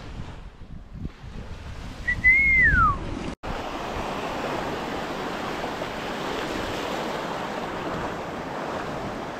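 Shallow sea water washing and lapping around the legs, a steady hiss, with wind buffeting the microphone in the first few seconds. Near the start a single short whistle holds its pitch, then slides down.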